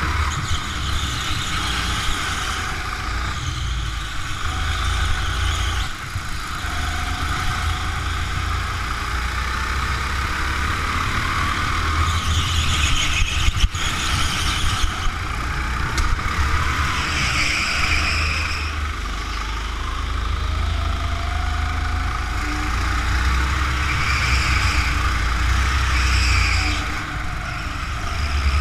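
Go-kart engine running continuously as the kart is driven around an indoor track, with recurring tyre squeals through the corners and a single sharp knock about halfway.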